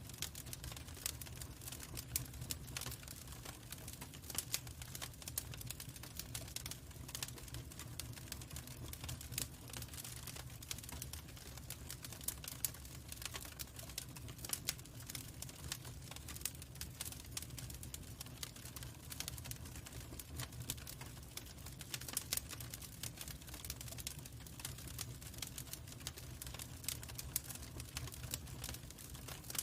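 Log fire burning in a fireplace, crackling with irregular sharp pops and snaps over a steady low rumble.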